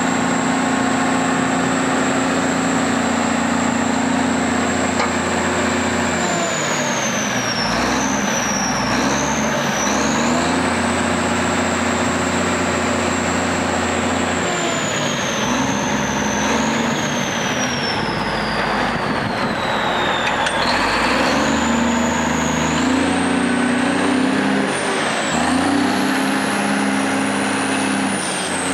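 The 1986 Champion 740 grader's six-cylinder Cummins diesel runs while its hydraulics work the snow wing. The engine note dips and recovers several times under the hydraulic load, over a high whine that sinks and climbs again with it.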